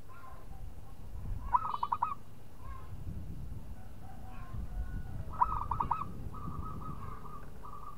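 Zebra dove (perkutut) cooing: two quick bursts of about five ringing coos, about a second and a half in and again after five seconds, then a longer run of rapid notes.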